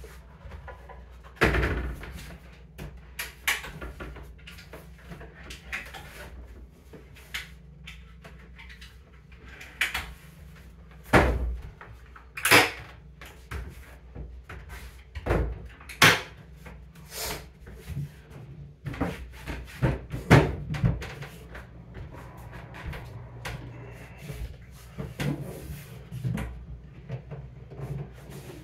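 Hinged wooden panels and cabinet doors of a Murphy cabinet bed being opened, flipped and set down: an irregular series of sharp wooden knocks and clacks, with quieter handling sounds between them.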